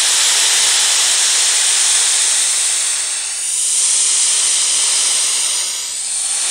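White noise played from a phone speaker, picked up by a HyperX QuadCast USB condenser microphone set to its bidirectional (front-and-back) pattern. The hiss is steady and loud, dipping briefly twice as the phone is moved around the microphone, about three seconds in and again near the end.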